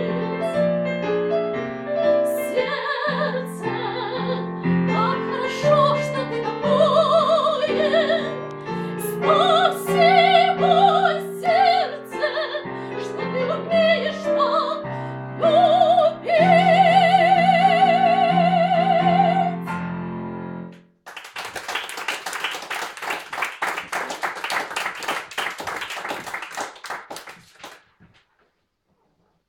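A woman singing a Russian tango in operatic style with a wide vibrato, accompanied by piano; the song ends about twenty seconds in. Audience applause follows for about seven seconds.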